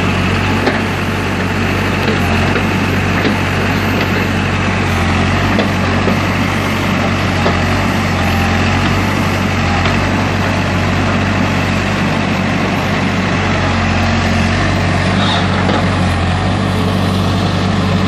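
Hidromek backhoe loader's diesel engine running steadily as the machine digs a trench with its rear backhoe arm.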